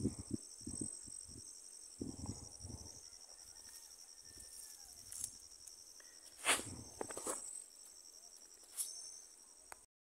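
Insects chirring steadily at a high pitch in a fast pulsing buzz. Over it come low rustling and bumps of handling in the first few seconds, then two sharp knocks, the loudest near the middle.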